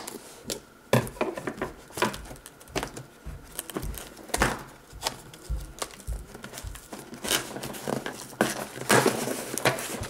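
Scissors cutting through packing tape on a cardboard box, then paper and tape crinkling and tearing as they are peeled off, in a string of irregular clicks and rustles.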